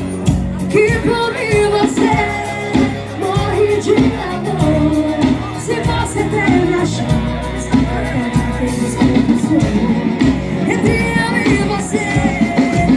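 Live forró band playing with a lead singer over a steady bass and drum beat.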